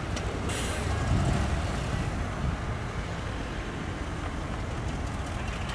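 Heavy diesel earthmoving machinery, a bulldozer and dump trucks at work, running steadily with a deep engine rumble. A brief hiss sounds about half a second in.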